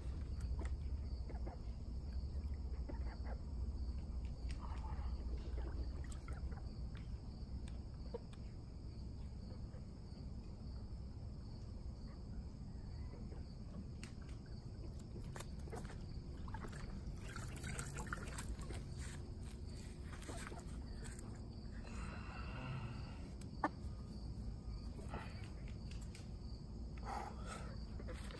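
Permethrin dip water sloshing and trickling quietly in a plastic bucket as a chicken is held and worked through it by hand, with scattered small splashes and drips.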